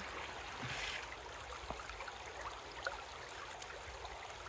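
Shallow river running steadily over rocks, with a brief splash about a second in as a jug of water is poured out into it.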